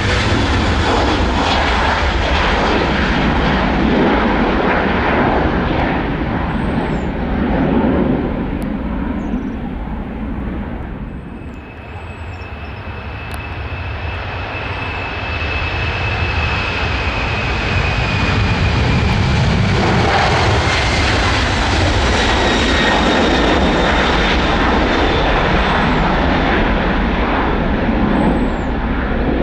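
Jet airliner takeoffs: a Boeing 737-800's twin CFM56 turbofans run at takeoff thrust as it lifts off and climbs away, fading out about eleven seconds in. Then a Boeing 767's twin jet engines build up loud at takeoff power, with a high whine that slowly falls in pitch, and stay loud to the end.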